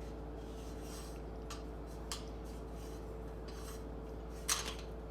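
Short scraping and rubbing sounds, a few soft ones and then a sharper, louder scrape about four and a half seconds in, over a steady low hum.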